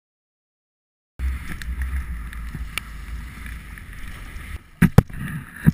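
Wind rumbling on a GoPro Hero2 action camera's microphone on a windsurf rig in choppy water, starting about a second in, with water noise. Near the end come three sharp knocks, two in quick succession and a third just after.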